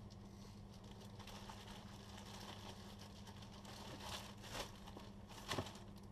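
Clear plastic bags of packaged clothing crinkling and rustling as they are handled, with a few louder crinkles in the last two seconds.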